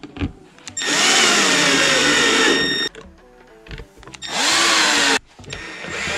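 Power drill driving screws into a plastic dash-kit bracket in three runs, the longest about two seconds, the motor pitch sagging as each screw draws tight.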